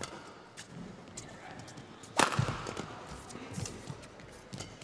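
Badminton rally: one loud, sharp racket strike on the shuttlecock about two seconds in, echoing in the hall, among lighter footfalls and shoe noises on the court.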